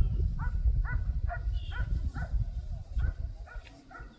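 A quick run of short, high, falling animal calls, about three a second, over a low rumble that fades near the end.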